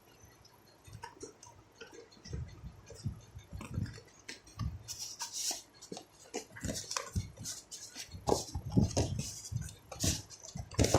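Packaging of a VR headset box being handled and opened by hand: irregular rustling, crinkling, taps and light knocks, getting busier after about five seconds.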